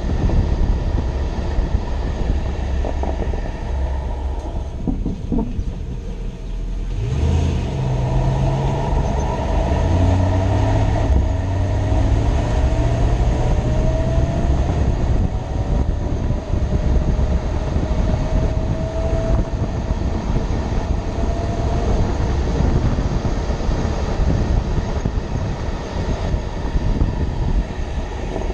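2006 Toyota Tundra running, a steady low rumble with a faint whine that rises slowly in pitch several times, dipping briefly a few seconds in.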